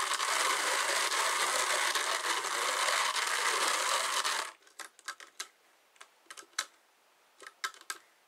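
Hand-cranked drum carder turning, its wire carding cloth brushing through wool with a steady whirring rasp that stops abruptly about four and a half seconds in. A few light clicks and taps follow as the drums sit still.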